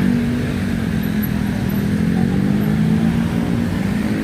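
A vehicle engine running close by, a steady pitched hum over a low rumble, its pitch drifting down slightly and rising again near the end.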